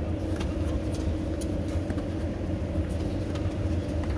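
Steady low rumble of a motor vehicle, with a few faint ticks over it.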